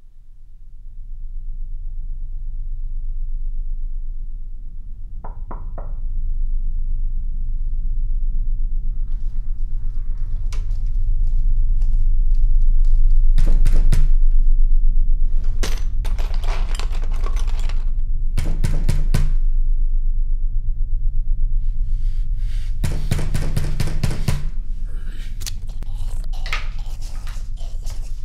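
Low, steady drone of a film score under repeated bursts of rapid knocking on a door. The bursts come in clusters, longer and closer together after about ten seconds.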